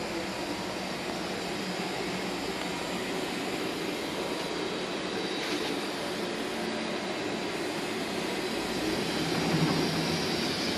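DMG DMU 50T CNC machining center powered up and running, a steady mechanical whir and hiss that grows slowly louder and swells briefly near the end.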